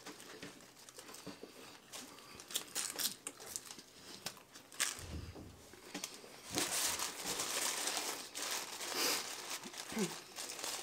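Paper taco wrappers crinkling and rustling as they are handled and unwrapped, with scattered small crackles. The rustling is densest about two-thirds of the way through.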